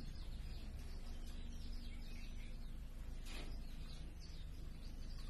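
Small birds chirping rapidly in short, quickly falling high notes over a steady low rumble, with one brief louder sound a little past three seconds in.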